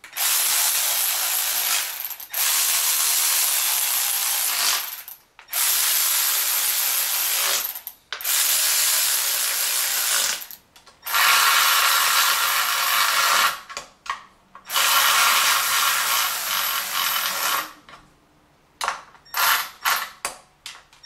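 Cordless electric ratchet running down the M6 oil pan bolts on a BMW M52 engine, in runs of two to three seconds each with short pauses between bolts, then a few short bursts near the end.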